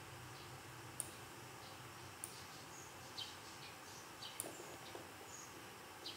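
Three faint computer-mouse clicks a second or two apart over quiet room noise, with a few brief high chirps in between.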